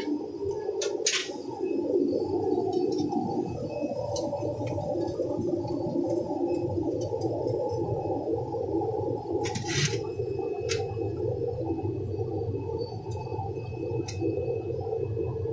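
Tissue-making machinery running in a factory: a steady, muffled mechanical drone, with a few sharp clicks about a second in and again near ten seconds.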